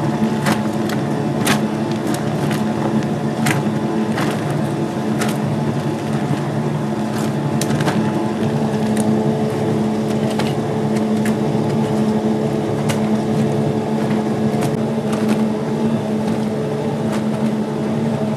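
Clothes washing machine running: a steady motor hum with scattered sharp clicks at irregular intervals.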